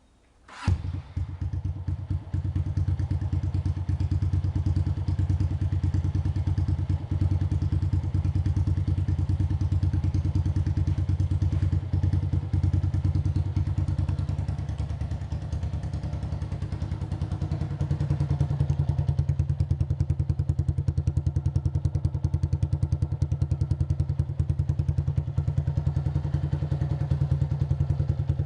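Honda CG Titan 125's single-cylinder four-stroke engine starting up about half a second in and then idling with a fast, even exhaust pulse through an aftermarket Aluminium RS muffler with a figure-eight outlet. The idle picks up slightly a little past halfway.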